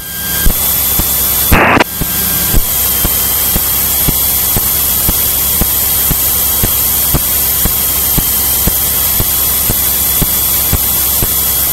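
Aircraft radio and intercom audio feed carrying steady static hiss and hum between transmissions, with faint regular clicks about twice a second. A short burst of noise about a second and a half in sounds like a brief keyed transmission.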